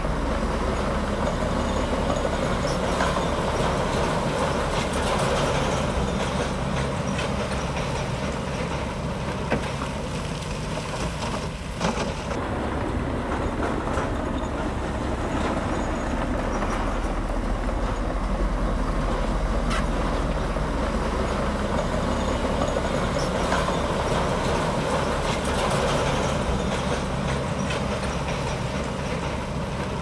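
Komatsu D65P bulldozer's diesel engine running steadily, with two sharp knocks around the middle.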